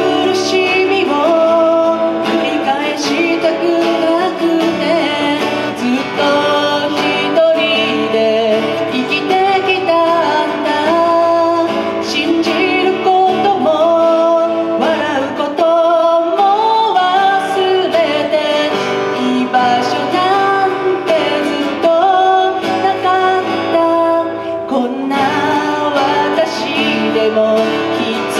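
A woman singing a quiet song live, accompanying herself on a strummed acoustic guitar.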